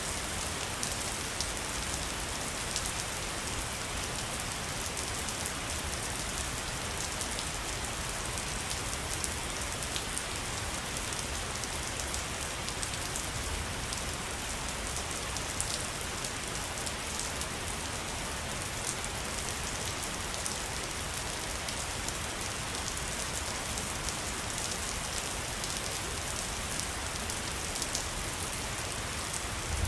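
Waterfall: a steady rush of falling water, with small splashes ticking through it.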